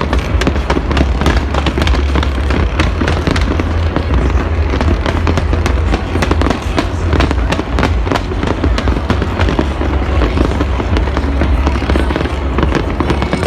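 Fireworks display at full intensity: many shells bursting in quick succession, a dense run of sharp cracks and bangs without a break over a constant low rumble.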